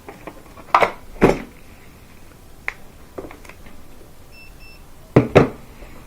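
Handling knocks and clicks: two pairs of sharp knocks, about a second in and near the end, with lighter clicks between, as a replacement dryer thermal fuse is tested for continuity with a multimeter. Two short faint beeps come from the meter about two-thirds of the way through.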